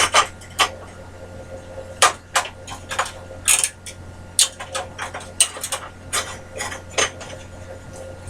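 Irregular metallic clicks and clanks, more than a dozen over the stretch, as the bandsaw's blade guide and nearby metal parts are handled and lowered.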